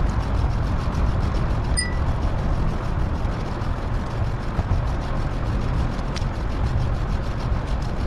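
Steady rumble of wind and road noise on the microphone of a moving bicycle. A brief high beep sounds about two seconds in.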